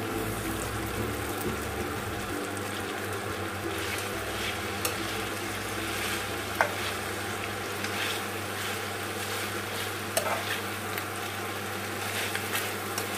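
Chicken and vegetables sizzling in a frying pan as a spatula stirs and tosses them, with a few sharp taps and scrapes of the spatula against the pan. A steady low hum runs underneath.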